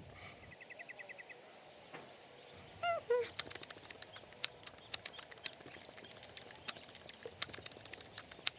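Crisp crunching clicks of pet food being eaten from bowls, a few a second and unevenly spaced. Just before the crunching starts, about three seconds in, there is a short falling call.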